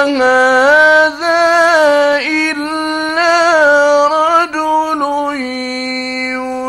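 An unaccompanied male voice chanting Quran recitation in long, melodic notes that step and waver in pitch. There are brief breaks about a second in and again near the middle, and one long held note near the end. It is an old mono radio-studio recording.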